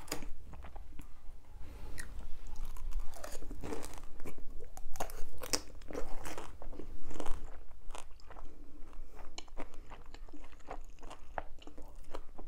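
Close-miked crunching and chewing of a large mouthful of crispy fried glutinous-rice sweet and sour pork (chapssal tangsuyuk), with irregular crackles as the batter breaks.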